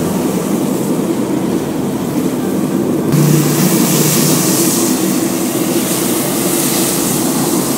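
Egg batter sizzling loudly in hot oil in a pan over a burner's roaring flame. About three seconds in, the oil catches fire and flares up, and the noise suddenly grows louder and more hissing.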